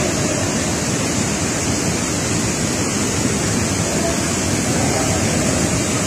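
Steady rushing of a waterfall close by, its spray falling onto the pool water.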